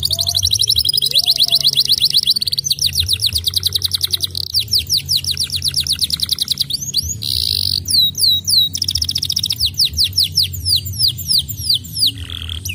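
Domestic canary singing a continuous song of fast trills, each a quick run of repeated high notes, switching to a new trill every couple of seconds. Slower, separate downward-sweeping notes come in the last few seconds.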